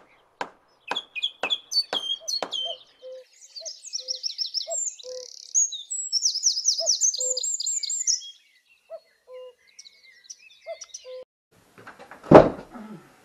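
Birds chirping and singing in fast trilled phrases, with short low notes repeating now and then. A run of clicks in the first couple of seconds and a single loud thump near the end.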